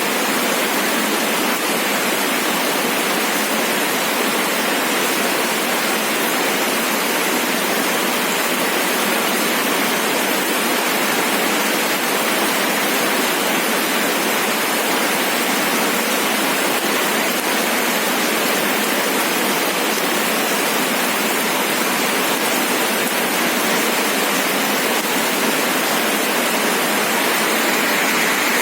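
Steady rain falling, an even hiss of rainfall with no separate drops standing out.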